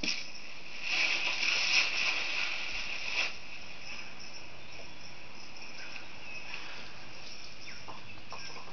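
Nature ambience from an animated film's soundtrack played through a computer speaker: a steady high insect chirring, like crickets, with a louder noisy swell between about one and three seconds in.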